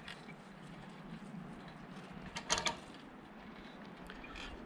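A short cluster of sharp clicks and scrapes about two and a half seconds in, from a strand of fence wire being twisted tight to take up its slack, over a quiet background.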